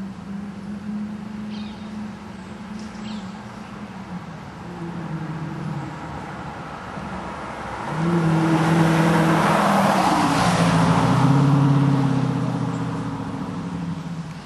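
Dodge Challenger R/T's 5.7-litre Hemi V8 through a Zoomers aftermarket exhaust, running steadily, then about eight seconds in getting much louder under hard acceleration. The exhaust note drops in pitch in steps as the transmission shifts up, then it fades toward the end.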